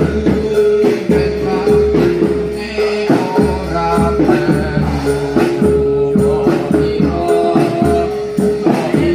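Upbeat music with a steady beat, tambourine jingles and singing.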